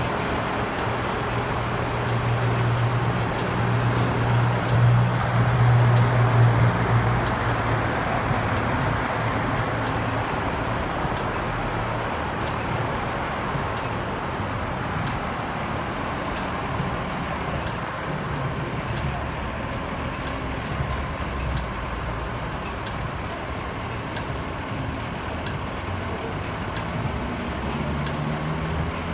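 Garbage truck's diesel engine running amid passing-car traffic noise. A low engine hum swells loudest about five seconds in, and a faint regular ticking runs throughout.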